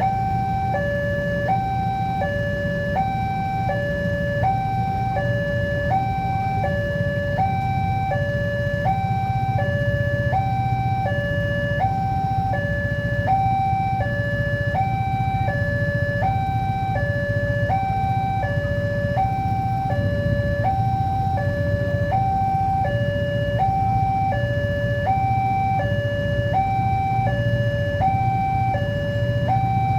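Railway level-crossing warning alarm sounding: an electronic two-tone signal that switches evenly between a higher and a lower tone, each held for under a second, over a steady low rumble.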